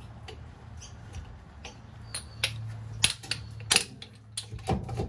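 Metal clinks and knocks of a hydraulic bottle jack's steel handle being worked under a caravan axle: a few sharp clinks about halfway through, then regular knocks at about two a second near the end, over a steady low hum.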